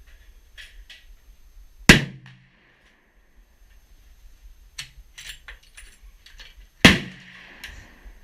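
Two gunshots about five seconds apart, each a sharp crack with a short ringing tail, with lighter clicks and knocks between them.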